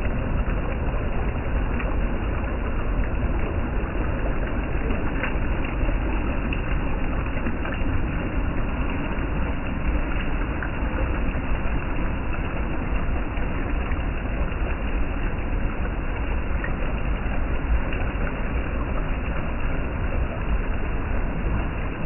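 Shallow stream water rushing steadily over rock slabs and small cascades of a waterfall, a constant rushing sound with a deep rumble underneath.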